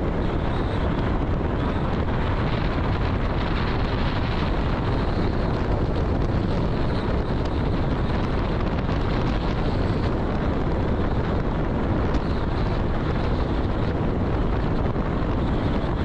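Steady rush of wind buffeting the microphone, with a deep rumble underneath, as from a moving vehicle.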